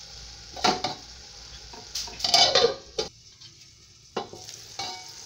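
Tomato-onion masala frying and sizzling in a kadhai, with a ringing clatter a little after two seconds in as a glass lid with a steel rim is set on the pan. The sound drops sharply for about a second after a click near three seconds in.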